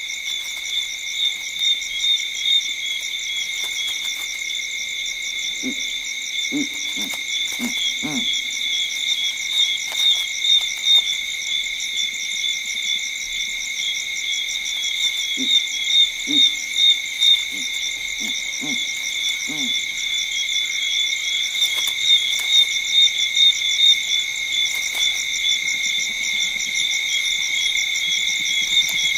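Night chorus of insects trilling steadily in several high pitches, with two bouts of short low hoots, the first about six seconds in and the second about sixteen seconds in.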